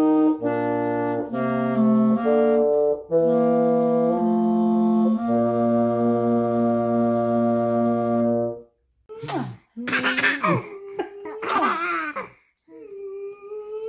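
A clarinet and a bassoon play a duet in steady held notes, the low line under the high one, ending on a long sustained chord that stops about nine seconds in. Then come a few seconds of high, sliding vocal sounds.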